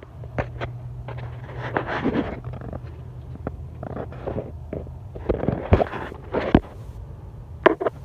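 Irregular knocks, clicks and short scraping sounds over a steady low hum.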